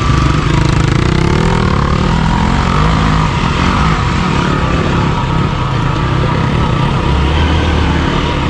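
Off-road motorcycle engine running steadily while riding a trail, its note holding fairly even with a little more low rumble near the end.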